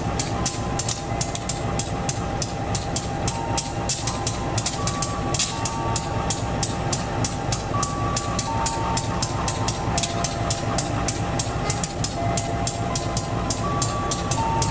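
Diesel locomotives running at a station, a steady low rumble with a fast, even pulsing throughout.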